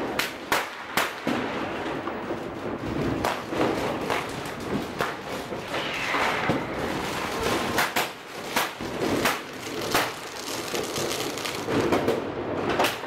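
Fireworks and firecrackers going off all around: sharp bangs and cracks at irregular intervals, several a second at times, over continuous crackling.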